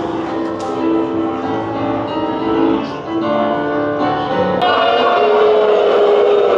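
Piano music: a run of notes moving from pitch to pitch, then longer held notes from about two-thirds of the way in.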